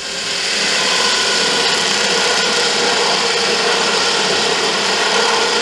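Cordless drill motor running steadily at constant speed, turning a tap in the end hole of an aluminum T-slot extrusion. It swells in over the first half second, then holds level.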